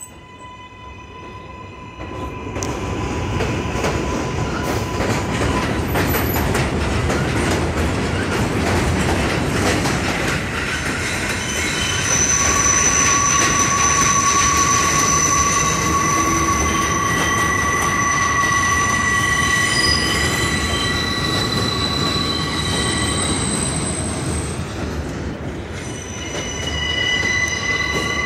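New York City subway train running past on an elevated steel structure: a steady rumble that builds about two seconds in, with high-pitched wheel squeal in several held tones through the middle and again near the end.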